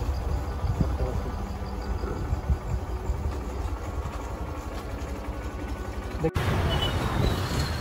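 Steady low rumble of a moving vehicle, with a faint engine hum. About six seconds in it cuts off abruptly and a noisier scene begins, with a thin high whine.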